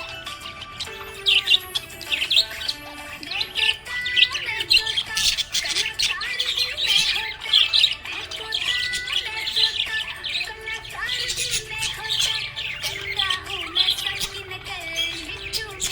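Budgies chirping and chattering continuously in quick, busy bursts of high squeaks and warbles, over background music.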